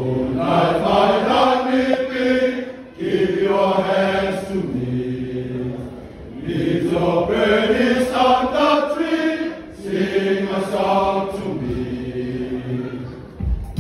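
Samoan chanting by a man's voice, held on long steady pitches in four phrases of about three seconds each, with short breaks between them.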